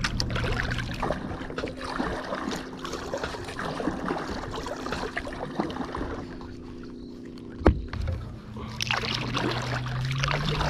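Double-bladed kayak paddle strokes dipping and splashing in lake water, with irregular drips and splashes. A single sharp knock about three-quarters of the way through.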